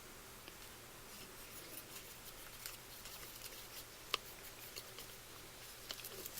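Faint clicks and taps of small plastic food-colouring bottles and a container being handled, with one sharper click about four seconds in.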